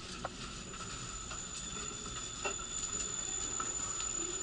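Cabin sound of a JR 115-series local electric train drawing into a station: a low steady rumble with a thin, steady high tone and a few light clicks.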